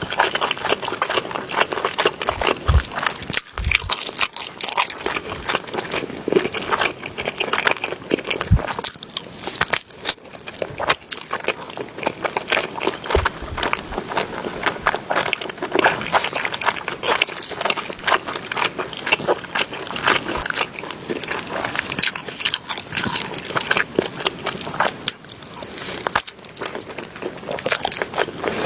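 Close-miked eating: a person biting and chewing crunchy food, a dense, unbroken run of crackling crunches.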